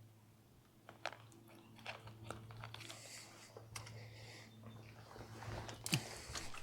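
Faint crackling, clicking and rustling handling noises, with a sharp knock just before the end, over a low steady hum: hands working with a just-caught smallmouth bass and the fishing tackle close to the microphone.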